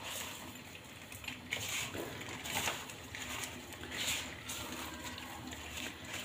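Crisp, hardened fried onions crushed and crumbled by hand on paper: soft, irregular crackling and paper rustling, with a few louder crunches.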